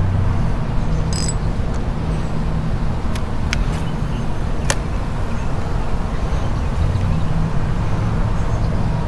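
Steady road traffic noise: a low engine hum over a continuous rushing haze, with a couple of sharp clicks in the middle.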